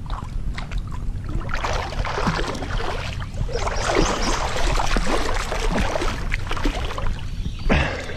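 Water sloshing and splashing around a camera held at the waterline as a person moves through still swamp water, busiest from about a second and a half in until about seven seconds, with a short louder splash near the end.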